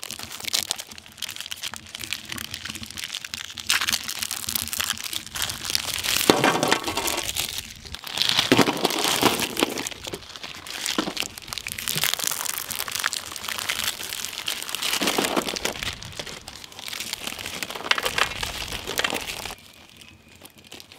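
Plastic Oreo biscuit wrappers being crinkled and torn open by hand: a dense, continuous crackling that stops shortly before the end.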